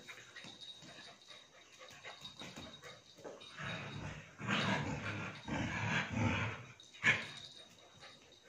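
A German Shepherd puppy and a Border Collie play-fighting, their noises louder from about halfway through, with a sharp sudden sound near the end.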